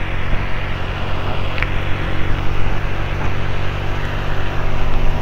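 Motorcycle engine running at a steady speed on the move, over a steady rush of wind and wet-road noise.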